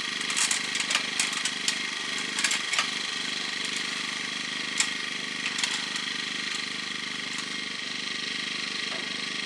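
An engine idling steadily, with scattered sharp clicks and knocks in the first few seconds and a few more around the middle.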